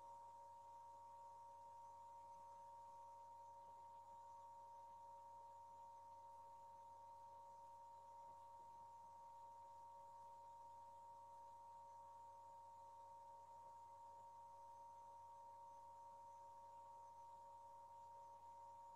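Near silence, with a faint steady high tone and a weaker lower tone beneath it.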